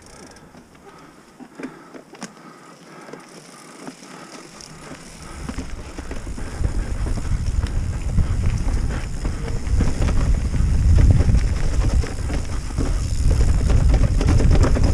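Mountain bike riding off-road: quiet at first with a few light clicks, then from about five seconds wind rushing over the camera microphone and tyre noise grow steadily louder.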